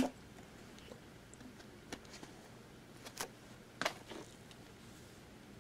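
Quiet room with a sharp click right at the start, then a few faint short clicks and small handling noises spread through the rest, the last of them around the time a hand is raised to the mouth.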